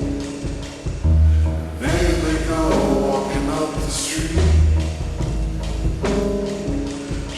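Slowed-down, reverb-heavy indie pop song: deep sustained bass notes under a sung vocal line.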